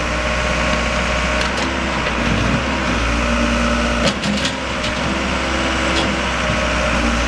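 Backhoe's diesel engine running steadily under load, with a few sharp cracks about four seconds in.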